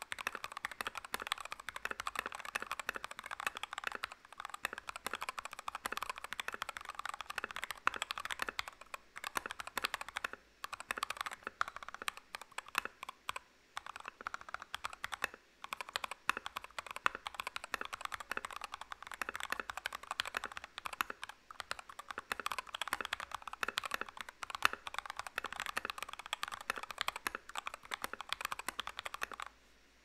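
Continuous typing on an NK65 mechanical keyboard with lubed NK Silk Emerald linear switches and PBT XDA-profile keycaps: a dense run of keystrokes with a few brief pauses, stopping just before the end.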